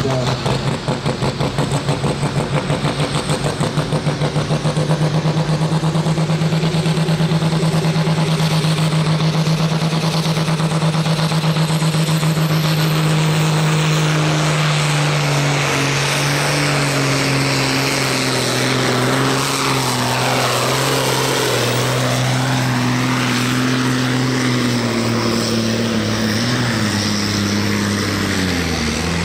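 International Harvester tractor's diesel engine running flat out while pulling a weight-transfer sled. Its pitch holds steady at first, then sinks steadily from about halfway through as the engine labours under the building load, with a sharper drop right at the end.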